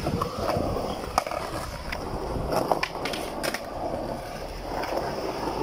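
Skateboard wheels rolling over concrete in a skatepark, with a few sharp knocks of the board scattered through.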